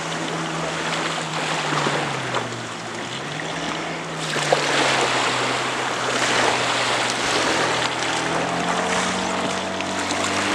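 Motorboat and jet ski engines running offshore over a steady wash of waves and wind. The engine pitch drops about two seconds in and climbs back, and a higher engine whine rises near the end as the jet ski passes.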